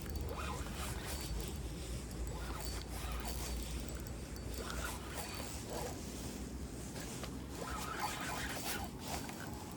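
Fishing reel being cranked while a catfish is reeled in: a rasping, zipper-like whirring with scraping handling noises over a low rumble.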